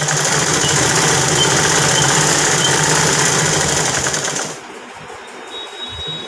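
Sewing machine running at speed, a fast even clatter of needle and feed stitching through fabric and stretched elastic on a waistband, stopping abruptly about four and a half seconds in.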